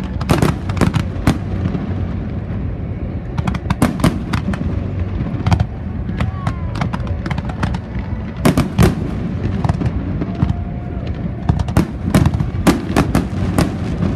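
Fireworks display: sharp bangs of bursting shells in clusters over a steady low rumble, thickest in the last few seconds.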